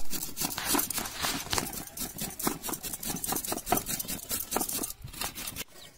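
Potato rubbed up and down a flat metal hand grater, a rasping scrape with each stroke at about three strokes a second; the grating stops shortly before the end.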